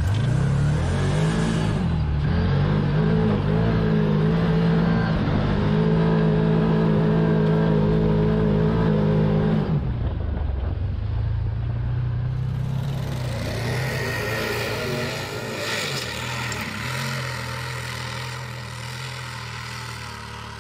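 Side-by-side UTV engine running, heard from on board. Its pitch dips and climbs back about two seconds in, then holds steady; after about ten seconds it continues at lower revs.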